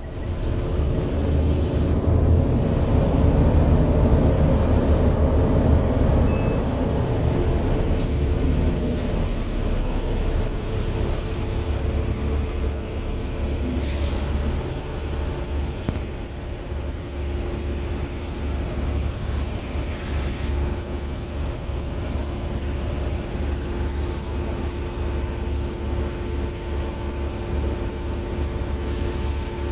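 Bus VLA129's diesel engine and drivetrain running. The sound picks up sharply at the start and then stays steady, a low rumble with a held whine over it.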